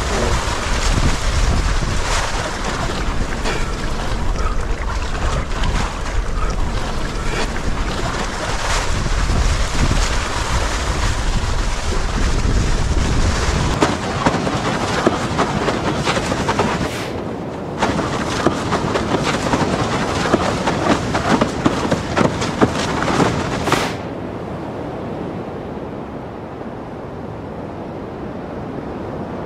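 Wind rumbling on the microphone over breaking surf and waves, with crackling spray. About halfway through the low wind rumble stops, and near the end the sound settles into a quieter, steady wash of surf.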